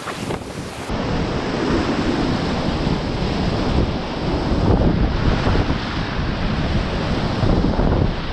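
Loud, steady rush of high-water whitewater rapids on the Ötztaler Ache, heard from a kayak running them, with water noise on the camera's microphone. About a second in the sound turns duller as the highest hiss drops away.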